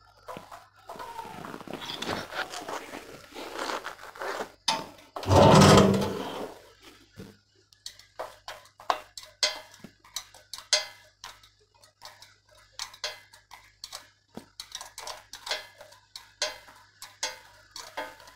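Hand tools, screws and wire terminals clicking and clinking against metal as a replacement AVR is wired in at a brushed generator's alternator end. There is rustling handling early on, one loud burst lasting about a second some five seconds in, then a run of short sharp clicks.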